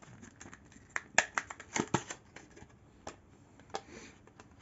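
Small packaging being handled and opened: a scatter of light clicks and taps, busiest about a second or two in, with a faint rustle of paper or plastic near the end.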